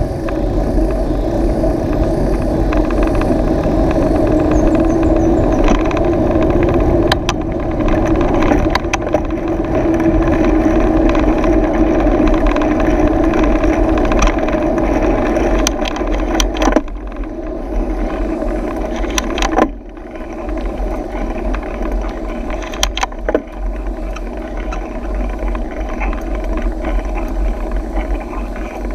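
Mountain bike riding on an asphalt road: a steady rush of wind noise and tyre hum, with several sharp knocks and rattles from bumps. The noise drops noticeably about two-thirds of the way through.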